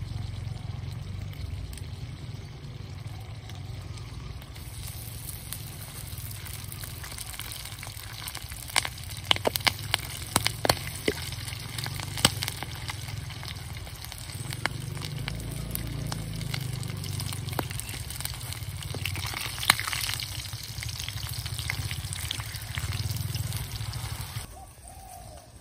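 Small wok of oil sizzling over a wood fire as spiders fry in it, with a steady low rumble underneath. A cluster of sharp clicks and crackles comes in the middle, and the sizzle drops away just before the end.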